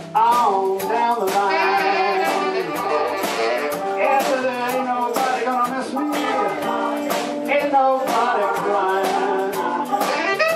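Live electric blues band playing: electric guitars, bass and drums behind a lead line on a harmonica cupped against a handheld microphone, its notes bending.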